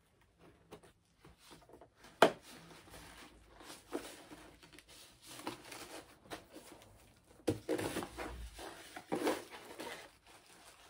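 A cardboard box being opened by hand: a sharp snap about two seconds in, then irregular tearing and rustling of cardboard and packaging, with heavier rustles later on.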